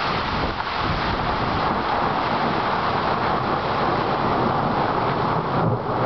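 Heavy rain and gusting wind in a thunderstorm: a steady rush of rain through the trees, with wind buffeting the microphone.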